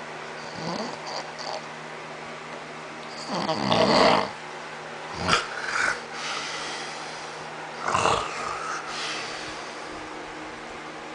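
A man snoring in his sleep: uneven snores with pauses between, the loudest about four seconds in, a short sharp snort a little after five seconds, and another loud snore at about eight seconds.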